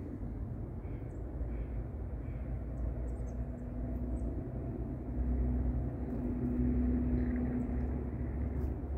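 Low, steady engine rumble with a droning hum that swells from about halfway through. A few faint, high bird chirps sound in the first few seconds.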